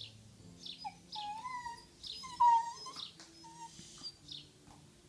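West Highland white terrier "talking": a few drawn-out whining moans that slide up and down in pitch, the loudest about two and a half seconds in.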